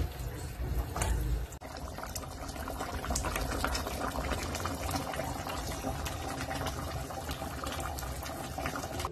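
Thick beef stew simmering in a pot, bubbling with a steady run of small pops and blips. In the first second or so there are louder knocks and low rumbling as it is stirred with a wooden spoon.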